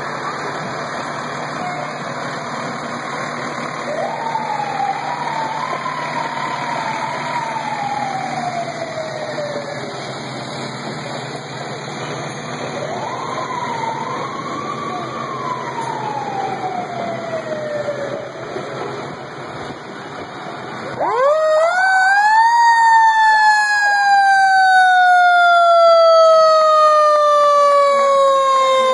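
Fire truck sirens passing in a parade over steady background noise: two wails that rise and then fall in pitch. About two-thirds of the way through, a much louder siren winds up sharply and then slowly falls in pitch.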